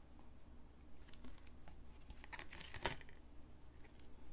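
Faint handling of a plastic Blu-ray case: scraping and rustling with a few small clicks, the loudest near three seconds in, as a disc is worked off the case's hub.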